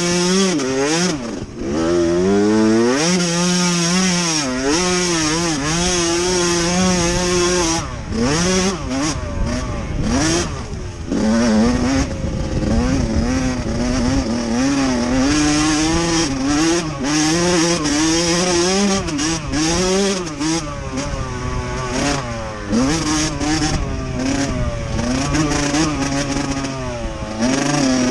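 Motocross dirt bike engine revving, the pitch rising and falling over and over as the rider works the throttle and gears, with the throttle shut off briefly a few times near the middle.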